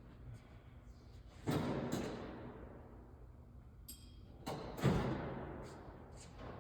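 Tools and a metal tool drawer clattering twice, about three seconds apart, each clatter fading over about a second, with a short metallic clink between them: rummaging for Allen keys.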